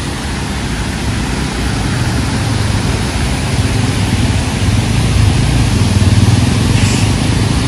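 Water pouring over a low dam, a steady rushing noise that grows louder and deeper from about halfway through.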